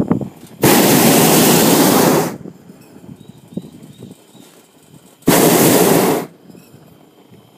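Hot-air balloon's propane burner firing in two blasts, the first about a second and a half long and the second about a second. Each starts and stops abruptly.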